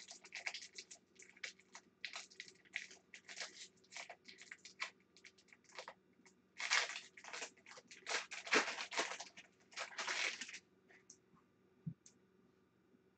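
Trading-card pack wrapper crinkling and tearing as it is pulled open by hand, in a run of short crackles, the loudest in the middle. Near the end it falls nearly quiet apart from a couple of faint ticks.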